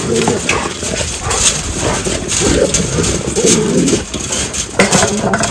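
Several Rottweiler–pit bull mix dogs barking excitedly in an overlapping din, their barking set off by an anteater treed within their sight.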